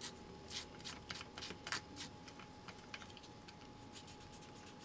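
Faint clicks and light scratching of fingers handling small metal contacts and a plastic connector. There is a quick run of clicks in the first two seconds, then only a few.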